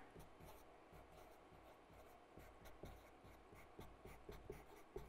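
Faint strokes of a marker pen writing on a board: a loose string of short, soft scrapes and taps.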